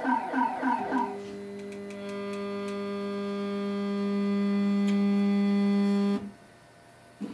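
ShopBot Desktop CNC's stepper motors driving the router's Z axis down to zero on a setting block. A warbling whine pulses about four times a second for the first second, then a steady pitched hum slowly grows louder and stops abruptly about six seconds in.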